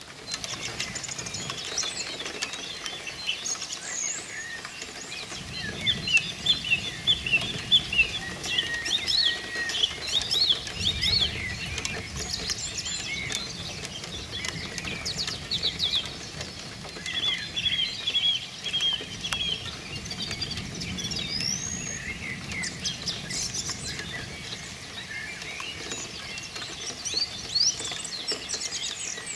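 Dawn chorus of several songbirds singing together, many overlapping chirps and whistles throughout. Low rumbles of distant thunder swell beneath it, from about five seconds in and again around twenty seconds.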